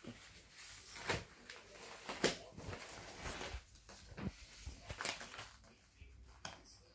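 Paper rustling and tearing as a card envelope is torn open and a greeting card is pulled out and handled: scattered crinkles with a few sharper snaps.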